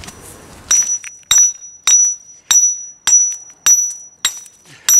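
Hand hammer striking a steel chisel to cut down a stone so it fits the step. The blows come evenly, about one every 0.6 s, each with a sharp clink and a short high ring.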